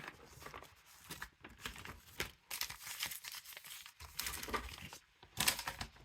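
Crinkly packaging of a Match Attax trading-card multipack being handled and opened, in irregular rustles, the loudest just before the end.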